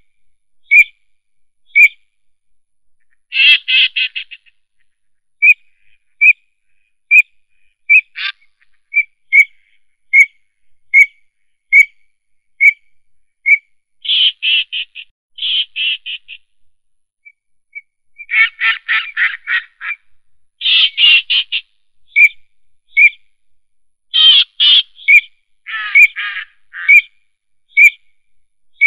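Animal calls: a short, high single note repeated about once a second, broken several times by rapid rattling trills.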